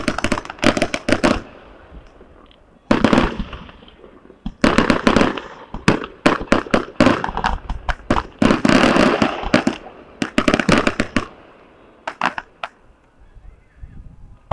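Aerial fireworks bursting in quick volleys of sharp bangs and crackles, one cluster every second or two, thinning to a few last pops about two seconds before the end.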